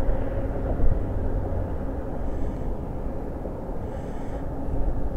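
Steady low rumble of vehicle traffic, with a faint engine hum underneath.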